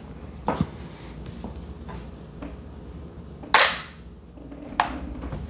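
Three sharp clicks or knocks, the loudest about three and a half seconds in, with a few faint ticks between them.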